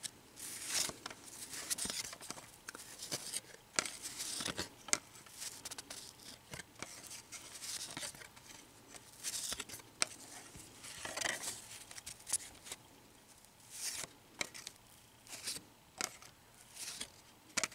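Stack of cardboard baseball trading cards being flipped through by hand: cards sliding against one another with irregular rustles and sharp little flicks.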